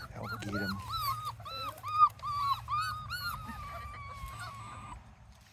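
Puppies whining, a quick run of short high whimpers about three a second followed by one longer drawn-out whine, their excited reaction to birds. A single sharp knock about two seconds in.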